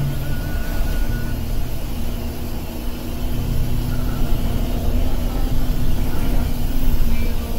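Bus engine and road noise heard from inside the cabin while under way: a steady low rumble with a held low hum.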